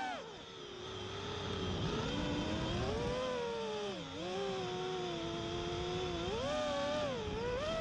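FPV racing quadcopter's four EMAX LS2206-2550KV brushless motors and Gemfan props whining in flight. The pitch drops at the start, rises, dips about four seconds in and climbs again near the end as the throttle changes.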